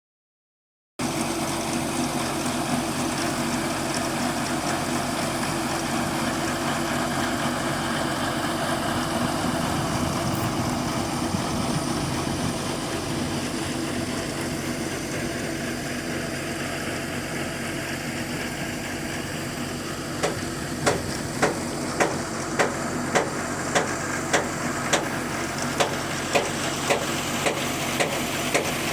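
Borewell drilling rig's engine running steadily. About two-thirds of the way in, a regular sharp knocking joins it, about one and a half knocks a second.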